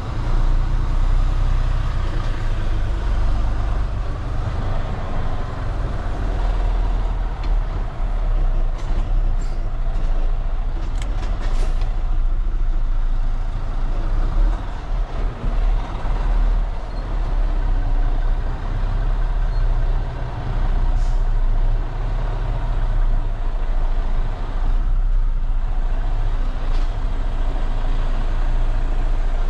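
Semi tractor's diesel engine running steadily as the truck moves, heard from inside the cab. A few light clicks come around ten seconds in.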